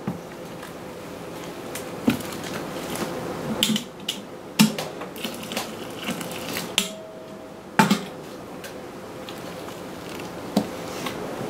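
Wooden mash paddle stirring thick wet grain mash in a plastic cooler mash tun, with several sharp knocks as the paddle hits the tun's sides. Midway, hot water is poured in from a stainless kettle to raise the mash temperature.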